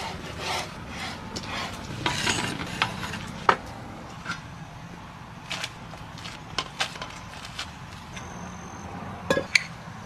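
A knife cutting and scraping rolled spinach pasta dough on a wooden board, in a run of rubbing strokes. Then come scattered light clicks and a few sharp clinks of dishes and utensils near the end.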